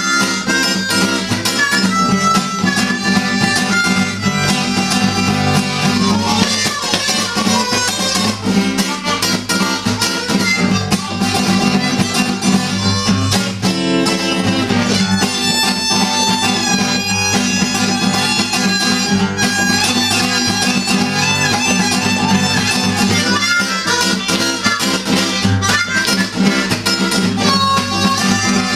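A steel-string acoustic guitar strummed in a steady rhythm while a harmonica plays a blues line over it, bending several notes around the middle.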